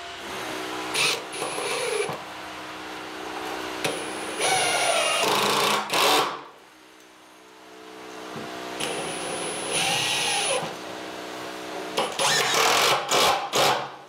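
Cordless drill-driver running screws through plywood into timber battens, in four bursts, each winding up and stopping. A steady hum of building-site noise runs underneath.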